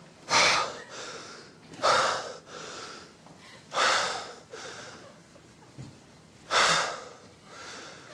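A person's loud, breathy gasps: four separate sharp rushes of breath a couple of seconds apart, each fading quickly.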